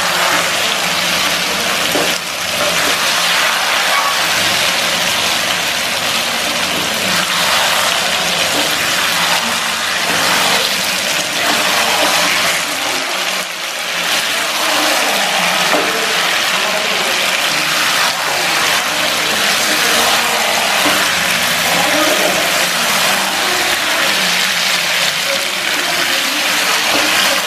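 Chicken and potato curry sizzling steadily in a non-stick frying pan while being turned with a wooden spatula, with the spatula scraping and knocking against the pan.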